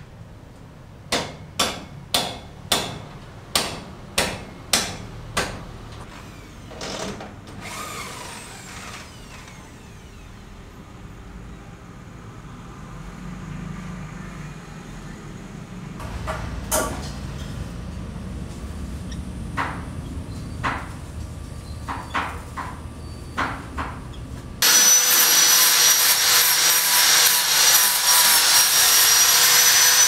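Construction work: about nine sharp knocks roughly half a second apart, then scattered lighter knocks, and about 25 seconds in a corded power tool starts and runs steadily with a high whine, the loudest sound here.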